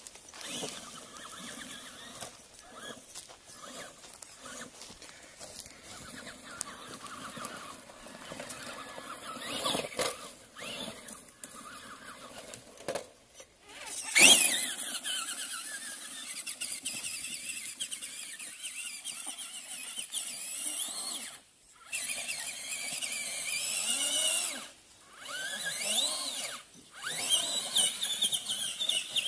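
Traxxas Rustler XL-5 RC truck's electric motor and gears whining, rising and falling in pitch with the throttle. Loudest about halfway through as the truck passes close, with a few short silences.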